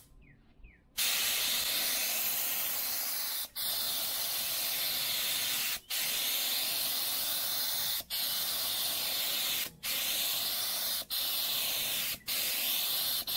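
Compressed-air gravity-feed paint spray gun spraying paint in a steady hiss. It starts about a second in and runs in passes of one to two and a half seconds, each cut by a brief release of the trigger, six times in all.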